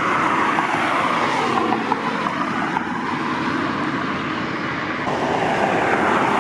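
Steady engine noise from passing vehicles, with a slow rise and fall in pitch and a swell near the end.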